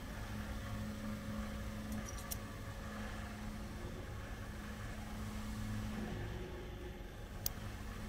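Steady low hum of running shop machinery with a held droning tone, and two sharp light clicks, one about two seconds in and a louder one near the end, as a tool holder and end mill are handled.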